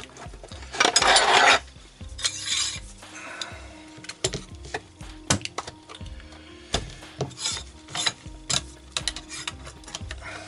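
Handling sounds on an infrared soldering station: a loud scraping rub about a second in, then scattered clicks and knocks as the laptop motherboard is moved into place.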